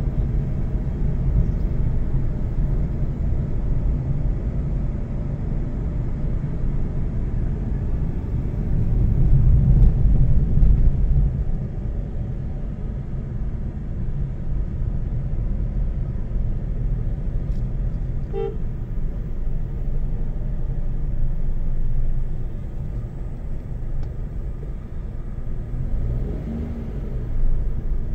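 Car driving at low speed, heard from inside the cabin: a steady low road and engine rumble that swells for a few seconds about a third of the way in. A brief pitched tone sounds once about two-thirds of the way through.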